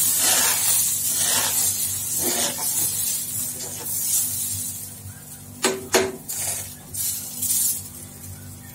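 Dosa batter hissing on a hot iron tawa as a ladle spreads it round in circles; the hiss fades over the first few seconds. Two sharp clinks of the ladle against the tawa about six seconds in.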